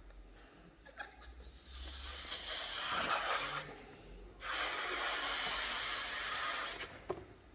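A man blowing up a latex balloon: two long breaths of air rushing into it, each about two seconds, with a short pause between them.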